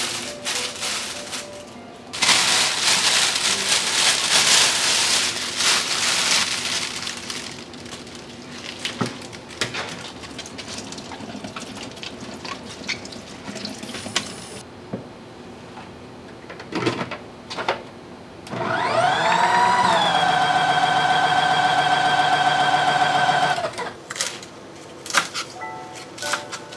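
Plastic produce bag crinkling, then tap water running onto spinach in a salad spinner. After that the salad spinner is spun for about five seconds: a rising whine that settles into a steady hum. Near the end a knife taps on a cutting board, with faint background music throughout.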